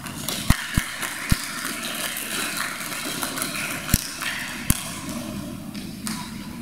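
Scattered audience clapping in a large hall, with five sharp thumps, three in the first second and a half and two more around four seconds in.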